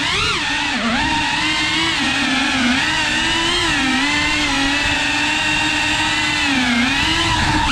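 FPV racing quadcopter's electric motors and propellers whining, the pitch wavering up and down as the throttle changes, with short dips in pitch about two and a half and six and a half seconds in.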